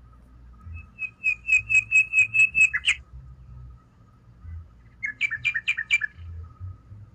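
A gull calling in two quick series of short, evenly spaced notes: about nine in a row, then a couple of seconds later a shorter run of about five.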